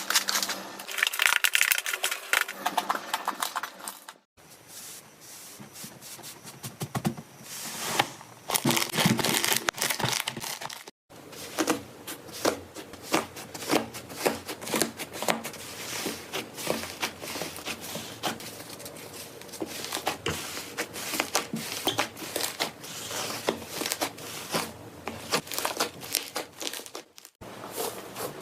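Slime being squeezed, stretched and poked by hand, full of small sticky crackles, pops and clicks. The sound breaks off three times for a moment as one clip gives way to the next.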